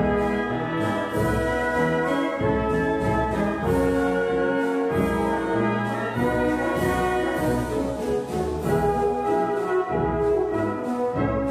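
Orchestral music led by brass, sustained chords with percussion strokes.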